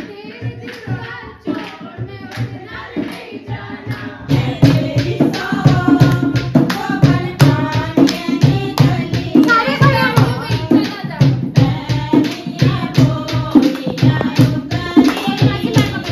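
Dogri wedding folk song (geet) sung by a group of women, with a steady beat of hand-drum strokes and hand claps. It gets louder about four seconds in, as more voices and beats join.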